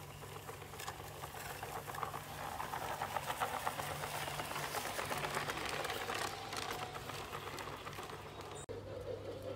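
Two LGB G-scale model locomotives running together: electric motors and gearing whirring with fast clicking of wheels on the track, swelling as the train comes close and fading as it moves on. The sound changes abruptly near the end.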